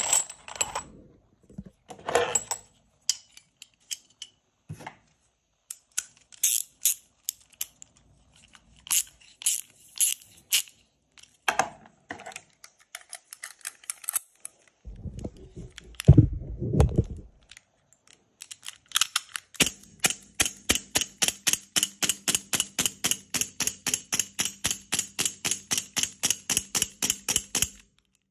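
Metal CO2 cartridges clinking and clicking as they are handled and one is loaded into an airsoft pistol's magazine, with a dull burst of handling noise partway through. Then a CO2-powered airsoft M1911 fires rapidly, about four sharp cracks a second, for some eight seconds.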